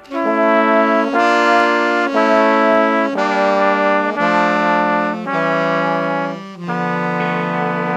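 Ska horn section of brass and saxophone playing a slow run of held chords, changing about once a second, then settling on one long sustained chord near the end with a rising slide under it.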